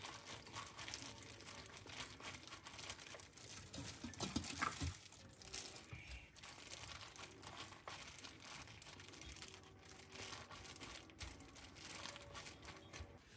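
Disposable plastic glove crinkling and rustling as hands press and pack seasoned green onion kimchi into a stainless steel tray, with faint wet handling noises. The sound is faint and continuous, a little louder around four to five seconds in.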